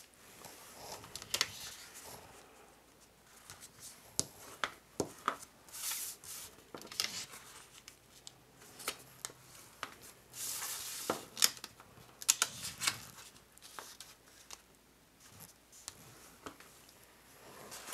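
Pre-scored cardstock being folded by hand along its score lines and pressed flat: irregular crisp paper snaps and clicks with short sliding, rubbing swishes, and a longer swish about ten seconds in.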